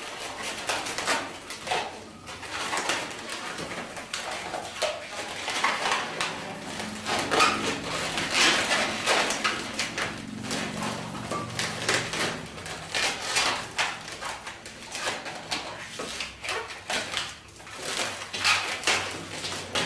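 Long latex 260 modelling balloons squeaking and rubbing against one another as they are twisted into bubbles and woven into a balloon basket, in irregular short squeaks and rubs.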